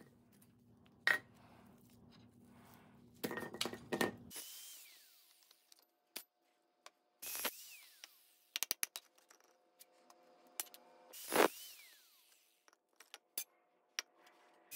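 Scattered metallic clinks and knocks of copper-wound motor stators and their steel housings being handled and set down, with a few sharper knocks among lighter clicks. A low hum in the background cuts off about four seconds in.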